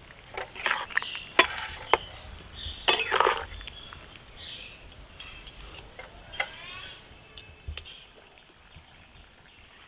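Metal ladle stirring a thin, watery sauce in a metal kadai, with sharp clinks and scrapes against the pan in the first few seconds; it grows quieter after that, with one soft thump near the end.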